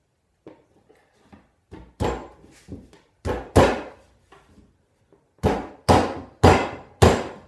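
Black walnut panel being knocked down by hand to seat its glued tongue into the groove of the mating panel. A string of about eight sharp knocks, loosely in pairs, starts about two seconds in and is loudest in the second half.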